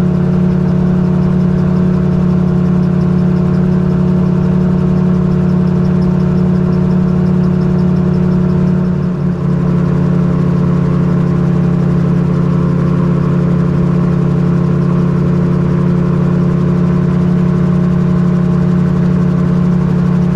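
Magni M16 gyrocopter in cruising flight: the steady drone of its engine and pusher propeller, heard from the open cockpit, with a brief dip about nine seconds in.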